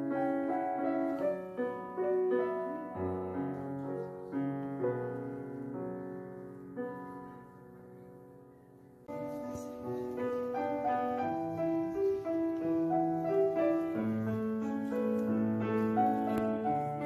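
Background piano music. It fades down about halfway through, then comes back in suddenly a moment later.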